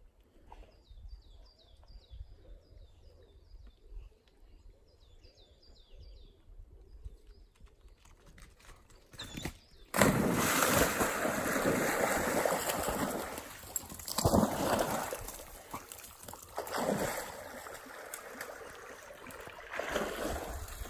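A dog leaping into a shallow stream and splashing through the water. Loud splashing starts suddenly about halfway through, then comes back in shorter bursts of splashing.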